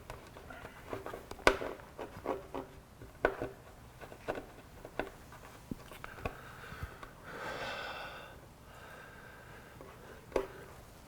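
Hands pressing and rubbing a clear adhesive tank grip onto a motorcycle fuel tank: scattered light taps and clicks, and a squeak lasting about a second and a half about seven seconds in.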